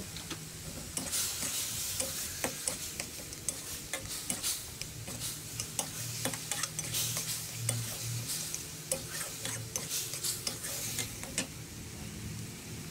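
Metal spatula scraping and stirring minced meat around a metal wok, over a frying sizzle as freshly added liquid seasoning cooks in. The quick scrapes start about a second in and stop near the end.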